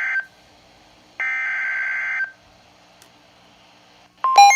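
Emergency Alert System SAME header on NOAA Weather Radio: buzzy digital data bursts about a second long, one ending just after the start and another about a second later, with quiet gaps between them. Near the end comes a short, loud beeping burst, and then the steady single-pitch weather radio warning alarm tone begins, signalling a new warning.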